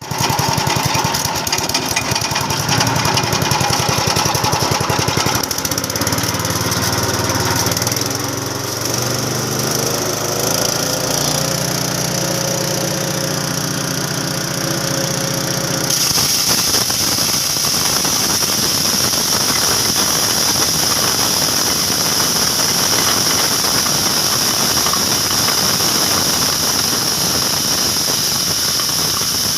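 Multifunction chopper machine running while grinding dried corn kernels, a loud continuous mechanical noise. About halfway through, the sound changes and a strong high hiss takes over and holds steady.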